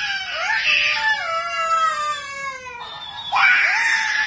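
A toddler crying in long, loud wails, mixed with a talking plush hamster toy that repeats the cries back in a squeaky, higher-pitched voice. The middle cry is drawn out and falls in pitch.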